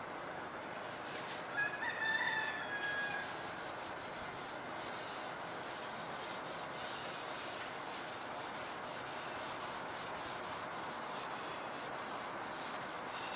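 Repeated scrubbing strokes of a cloth or pad rubbing an apple cider vinegar and baking soda paste over an acrylic headlight lens to clear its haze. About two seconds in, a short pitched cry sounds over the rubbing.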